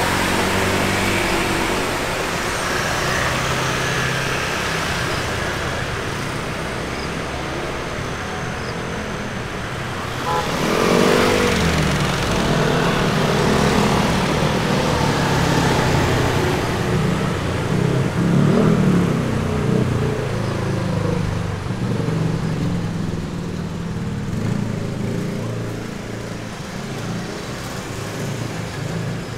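Street traffic of cars and motorbikes running by close at hand. About ten seconds in, a vehicle engine passes close and rises in pitch, louder for several seconds.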